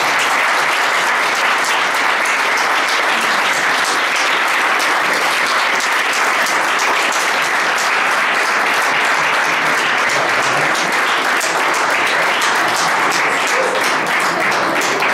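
An audience applauding: one long, steady round of clapping.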